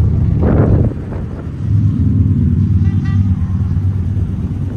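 1959 Ford F-250 pickup's engine idling shortly after a cold start, a steady low rumble. It swells briefly about half a second in, then settles back to an even idle.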